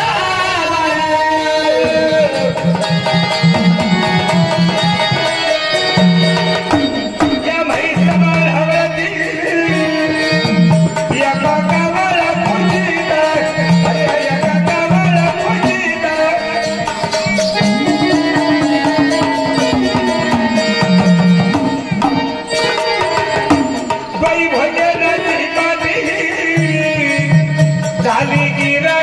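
Devotional folk music: a hand drum keeping a steady rhythm under a sustained melodic accompaniment, with a voice or melody line gliding in phrases at times.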